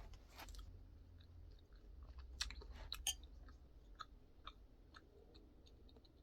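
A person chewing food close to the microphone: faint, scattered wet mouth clicks, with a few louder ones between two and three seconds in.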